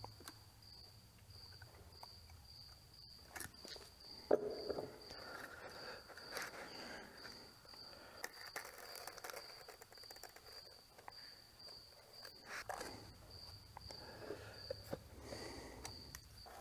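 Quiet handling at a workbench: a pencil writing on paper, digital calipers and a metal square being handled, and a few knocks as tools are set down, the loudest about four seconds in and again near thirteen seconds. Under it a faint, steady, high-pitched pulsed chirping continues throughout.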